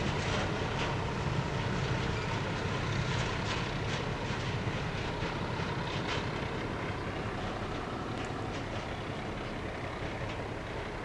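Freight train rolling away, its wheels clicking over rail joints over a low rumble. The sound slowly fades, and the clicks thin out after about six seconds.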